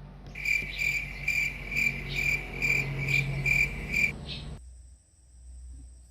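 An insect calling with a rhythmic, high-pitched pulsed chirp, about two to three pulses a second, that stops about four seconds in.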